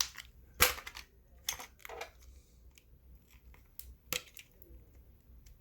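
Sharp clicks and short scrapes of small plastic and metal parts being handled and pried apart, with the loudest click about half a second in and another a little after four seconds.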